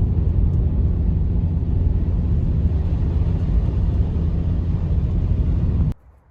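A loud, steady low rumble that cuts off abruptly about six seconds in, leaving only a faint hiss.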